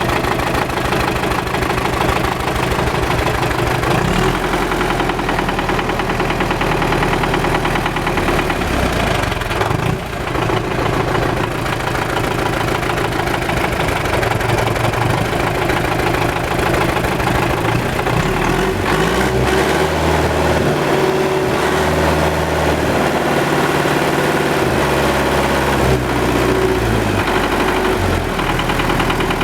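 MTZ tractor's diesel engine running with a knock, which the owner puts down to the fuel injection equipment.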